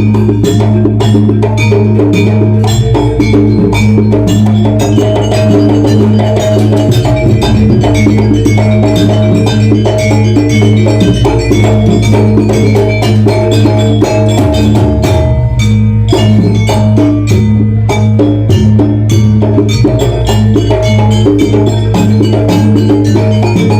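Jaranan gamelan ensemble playing: bronze gongs and metallophones ring over a dense, steady drum-and-percussion rhythm, with a deep held gong tone underneath.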